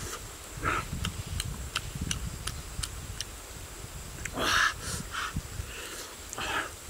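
Mouth sounds of a man eating grilled fish with his fingers: chewing and lip-smacking in a few short bursts, with small clicks in between.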